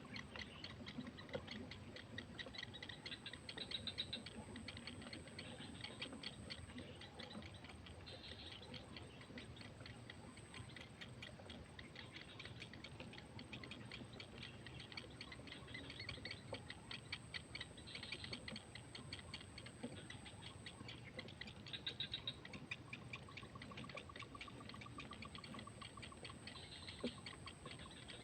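Faint outdoor ambience of continuous rapid ticking, with scattered high chirps and a thin steady high whine; a short trill comes in near the end.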